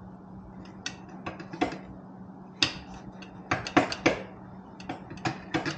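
Irregular sharp metallic clicks and clinks, with a louder cluster about halfway through, as a Cone Engineering shorty muffler is pushed and twisted onto a motorcycle's exhaust pipe. It is a tight fit that will not slide on.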